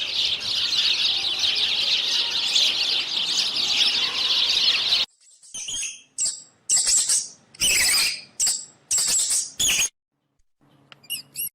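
Dense chorus of many birds chirping, cut off suddenly about five seconds in. After it comes a run of separate short, high calls with short silences between them, and a few quick chirps near the end.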